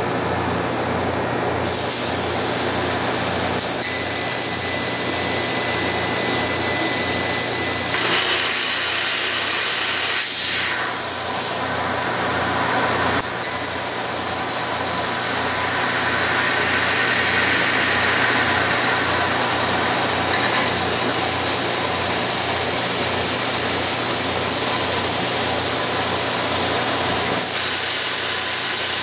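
Kern 400-watt CO2 laser cutter cutting brass sheet: a loud steady hiss of the assist gas blowing through the cutting nozzle, over a low evenly pulsing machine hum. The hiss drops for a second or so about twelve seconds in.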